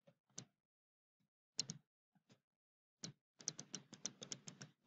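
Faint clicks of a stylus pen tapping on a tablet screen during handwriting: a few scattered taps, then a quick run of about a dozen, several a second, over the last two seconds.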